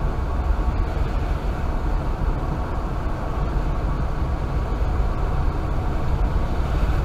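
Steady rumble of a car driving on a wet road, heard from inside the cabin.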